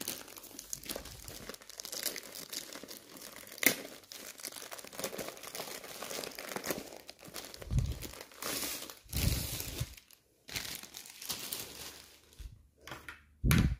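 Diamond painting kit packaging being opened and unwrapped by hand: a continuous crinkling and tearing of wrapping, with a few sharp crackles and a couple of dull bumps around the middle.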